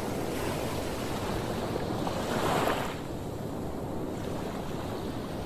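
Sea waves washing onto the shore, one swelling to its loudest about two and a half seconds in and then falling away, with wind rumbling on the microphone.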